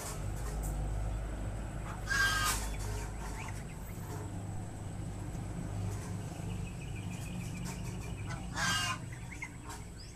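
A chicken calls twice, a short call about two seconds in and another near the end, over a low steady hum.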